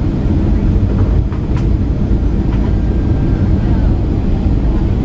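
Steady low roar of airliner cabin noise on the descent to land: engine and rushing-air noise heard from inside the passenger cabin, with a few faint clicks about a second in.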